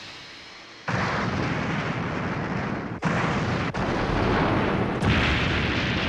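Explosion sound effects: a continuous blast and rumble that comes in suddenly about a second in, spliced together with abrupt cuts several times.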